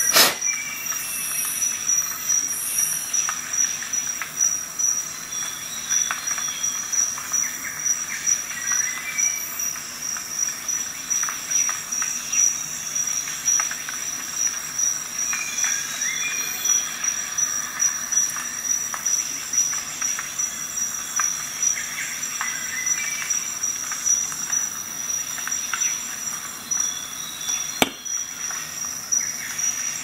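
Steel multitool being handled: small metallic clicks and rustles as the blade and pliers are worked, with a sharper click right at the start and another near the end. A steady high-pitched whine runs underneath throughout.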